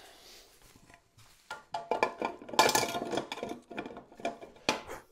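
Metal clattering and clinking as the hinged jointer tables of a Rikon 25-010H planer-thicknesser are lifted and handled: a quiet first second, then a run of sharp knocks and rattles, loudest near the middle.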